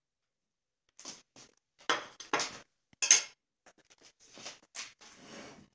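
A fork and china dishes clinking and knocking as they are handled on a kitchen counter: a few sharp clatters about two to three seconds in, then lighter taps and a brief scraping rustle.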